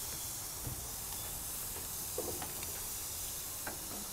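Steady hiss of food cooking on a barbecue grill, with a few light clicks.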